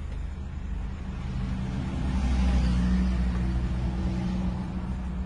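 A motor vehicle's engine running steadily, growing louder about two seconds in and then easing off.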